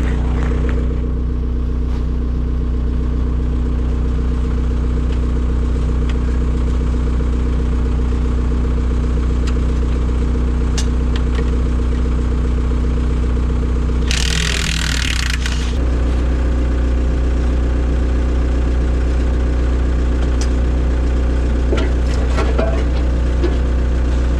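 Excavator's diesel engine idling steadily as it warms up. A short hiss lasting about a second and a half cuts in about two thirds of the way through, and a few light clicks follow near the end.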